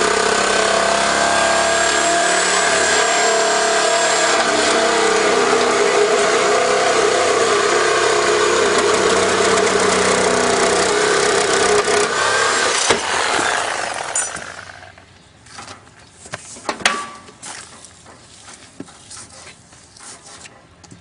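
A power cutting tool runs steadily while cutting into a water heater's steel tank, then is switched off about thirteen seconds in and winds down. Scattered metallic clicks and knocks of handling follow.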